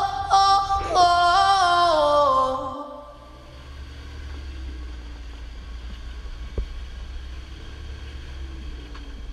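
Pop music with a female singer cuts off about three seconds in. It gives way to the steady low rumble of a Jeep Wrangler JK's engine as it crawls over rocks on a tow strap.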